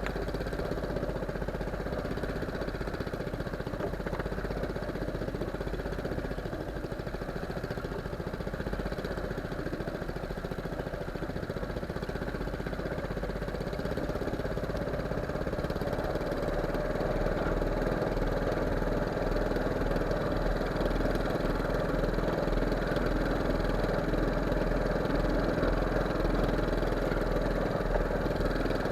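A small fishing boat's engine running steadily, growing a little louder about halfway through.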